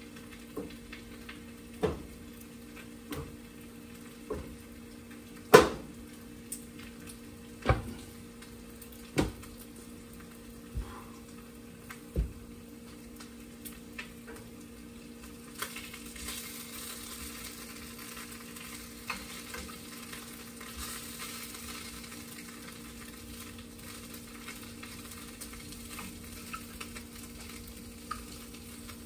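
A series of sharp knocks and clatters from handling cookware, the loudest about five and a half seconds in. About halfway through, food starts sizzling in a frying pan on a gas stove, a steady hiss over a constant low hum.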